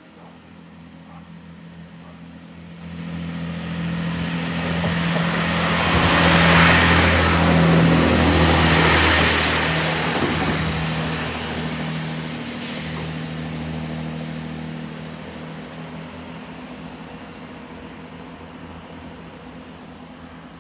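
A Networker Turbo diesel multiple unit passing through: a steady diesel engine drone under wheel and rail noise that builds to its loudest about six to ten seconds in, with one sharp click from the wheels, then slowly fades as the train runs away.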